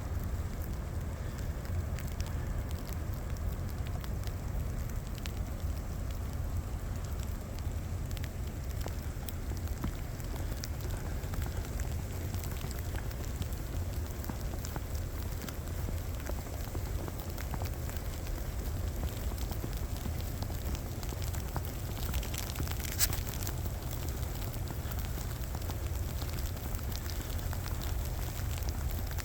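Snowstorm ambience: a steady low rumble with a fine, irregular crackle, and one sharper click about 23 seconds in.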